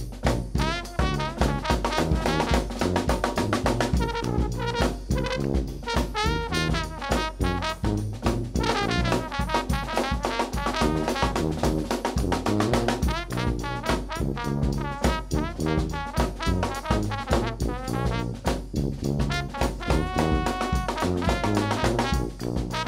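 New Orleans brass band playing live, with the trombone out front over bass drum, snare drum and sousaphone, and trumpet and saxophone in the ensemble.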